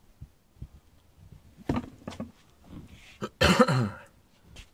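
A person coughing: a couple of short coughs about two seconds in, then one loud cough a little past three seconds in. Faint clicks from handling come in between.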